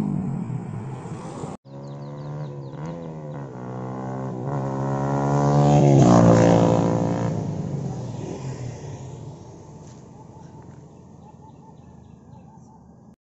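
Yamaha R15 V3's single-cylinder engine on an Akrapovic full-system exhaust with the dB killer removed, accelerating past through the gears. The pitch climbs and drops with a few upshifts, grows loudest as the bike passes about six seconds in, then fades away.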